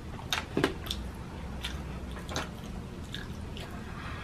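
A person chewing a mouthful of French fries close to the microphone, with irregular mouth clicks and smacks, the loudest about half a second in.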